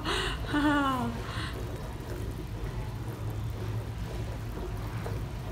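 Caramelising sugar syrup bubbling in a nonstick frying pan, stirred continuously with a metal ladle, just as it begins to scorch. A low steady hum runs underneath.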